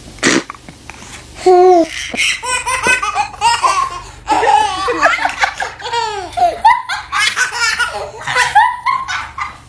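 A baby laughing hard in repeated bursts of belly laughter, starting about a second and a half in.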